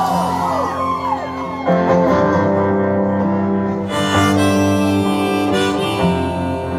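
Harmonica and strummed acoustic guitar playing a song's instrumental intro. The harmonica bends its notes in the first second, then holds long notes over the guitar strums.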